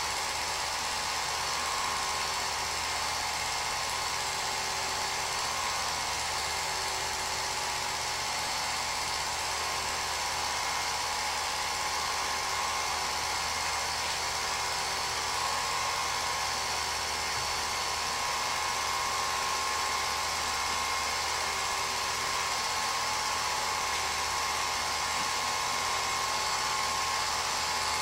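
Home-movie film projector running: a steady whirring motor with a constant hum.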